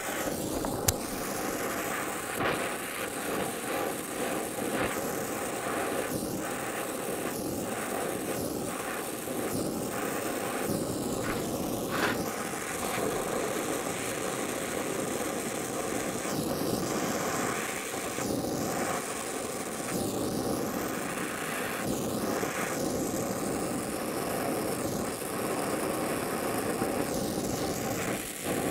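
Oxy-acetylene welding torch flame hissing steadily, dipping briefly now and then, as it melts a small ball onto the tips of 1/8-inch gas welding rod.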